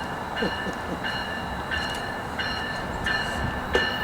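A train passing, with a steady rumble and a high-pitched ringing tone that comes and goes in a regular rhythm.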